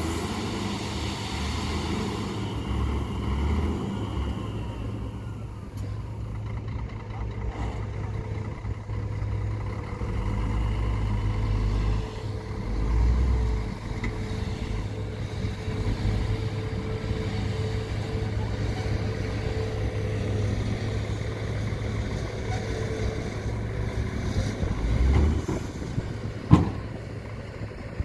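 Diesel dump truck's engine running steadily as the truck creeps forward with its bed raised, unloading soil. There is one sharp knock near the end.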